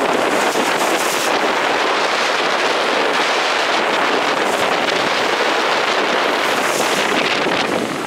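Gale-force wind buffeting the microphone over the steady rush of storm waves breaking against shore rocks.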